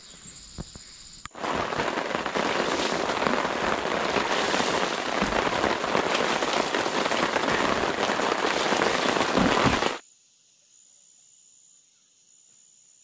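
Heavy rain falling on a tarp and wet ground: a dense, steady hiss that starts abruptly about a second in and cuts off abruptly near the end. A faint, steady insect chirring is heard before and after the rain.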